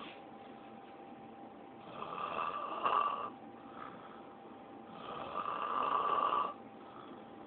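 A drunk man snoring loudly in deep sleep: two long snores, each about a second and a half, about three seconds apart, with quieter breathing between.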